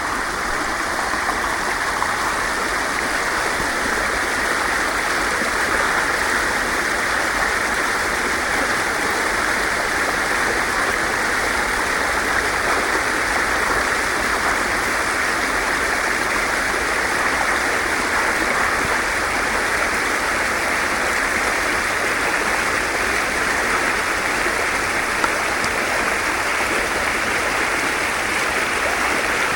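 Water flowing and rushing steadily, an even, unbroken noise.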